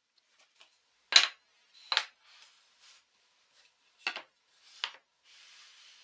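A wooden stick and an MDF push jig being handled and set down on a router table: four sharp wooden knocks, a pair about a second in and another pair about four seconds in, with a soft scrape of wood sliding near the end.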